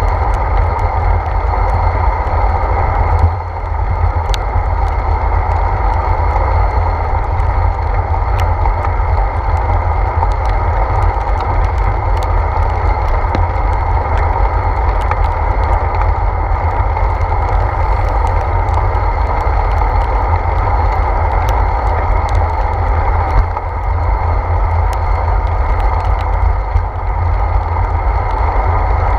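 Wind buffeting and road noise from a bicycle rolling on wet pavement, picked up by a handlebar-mounted GoPro Hero 4: a steady low rumble with scattered faint ticks, briefly dipping about three seconds in and twice near the end.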